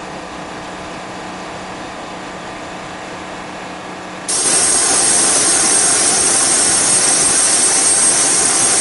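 Jet engine running: a steady rush with a faint low hum, then about four seconds in a sudden jump to a much louder noise topped by a high, steady whine.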